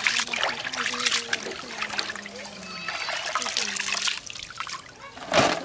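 Small shrimp being rinsed by hand in a metal basin of water: repeated swishing, splashing and trickling as the hands stir and lift them, with one louder splash near the end.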